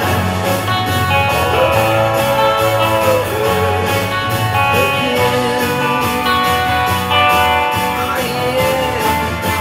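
Rock band music with a Rickenbacker electric guitar strummed with a pick over bass and a steady drum beat. A lead melody slides and wavers in pitch several times.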